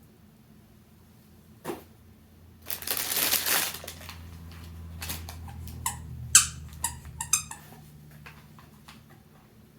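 A toddler's panda squeaker toy squeaked in a run of short, sharp squeaks, the loudest about six seconds in, after a brief loud rattle or rustle a little before three seconds in.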